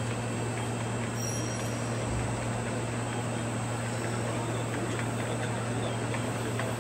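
Steady low hum and even noise of automated battery-production-line machinery, with a few faint ticks over it.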